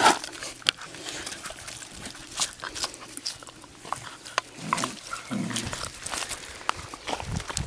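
Doberman Pinscher puppies making small vocal sounds as one mouths a hand, over scattered crackles of paws moving on dry leaves and gravel.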